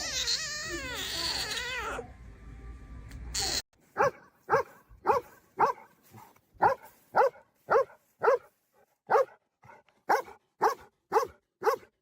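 A dog barking: first a wavering, howl-like cry, then from about four seconds in a steady run of about fifteen short yips, roughly two a second.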